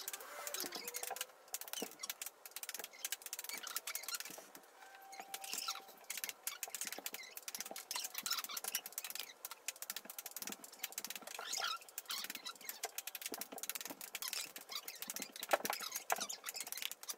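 Rain pattering: a dense, irregular patter of small drops, with scattered sharper clicks.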